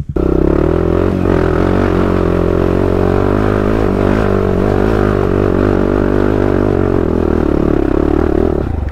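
ATV engine running hard at fairly steady revs, pulling the quad up a steep, loose dirt hill climb.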